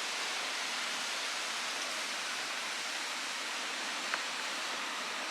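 Ocean surf heard from high above through an open balcony door: a steady, even wash of waves. A single short click about four seconds in.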